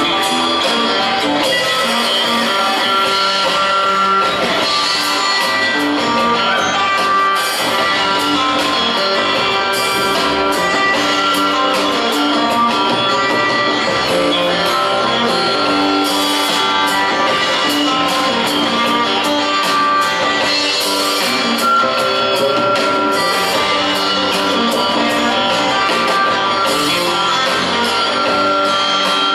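Live instrumental passage by a trio: electric guitar over upright double bass and a drum kit with cymbals, no singing.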